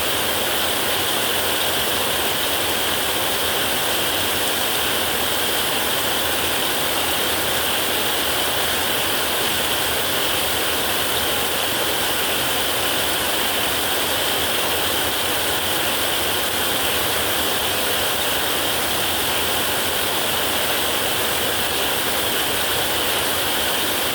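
Heavy rain falling steadily on a metal roof: a dense, even hiss of drops that does not change.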